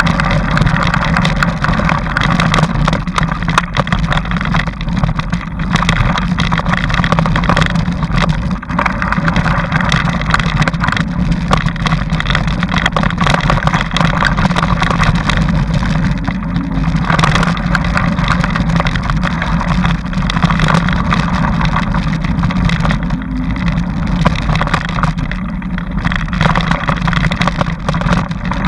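Steady rumble and constant rattling from a bike ridden along a rough dirt trail, picked up by a camera mounted on the bike.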